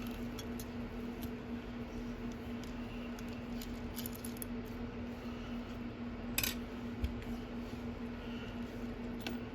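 A few faint metallic clicks from an Allen wrench and the parts of a Master Lock Pro Series 6835 padlock being handled as the lock is taken apart, the clearest about six seconds in. A steady low hum runs underneath.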